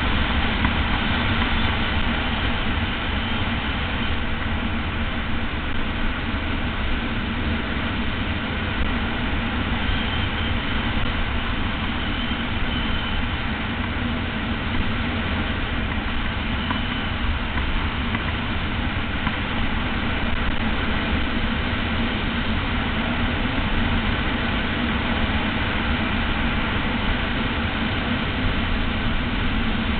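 Steady wind noise rushing over the microphone of a camera on a bicycle descending a mountain road at speed, with a heavy low rumble throughout.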